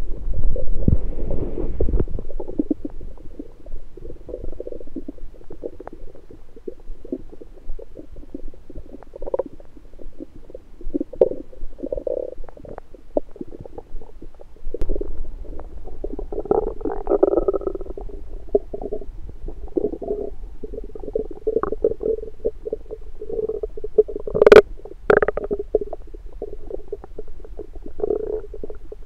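Human stomach and bowel gurgles picked up through an electronic stethoscope on the belly after breakfast: near-continuous, irregular bubbling rumbles of digestion over a low steady hum, with two sharp, louder pops near the end.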